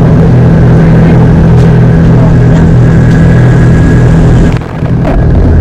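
Tour boat's engine running steadily with a low drone, dipping briefly near the end.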